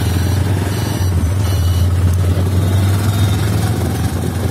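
Road noise from riding on the back of a motorbike or scooter: wind rumbling steadily on the microphone over the running two-wheeler and passing traffic.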